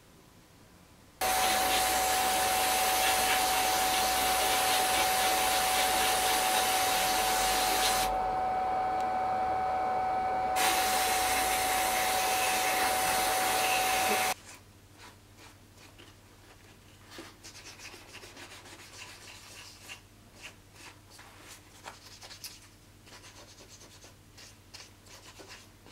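A burner runs with a loud steady rush and a high steady whine, then shuts off suddenly about two-thirds of the way through. After it come quieter, irregular hand rubbing and scraping strokes.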